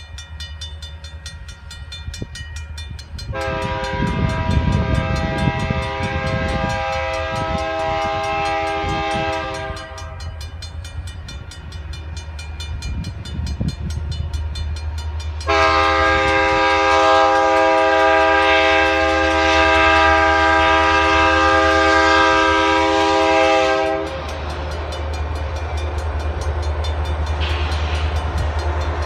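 Approaching diesel locomotive's air horn sounding for a grade crossing: two long blasts, and a third begins near the end. Under the horn is a steady low rumble, and the crossing bell rings steadily.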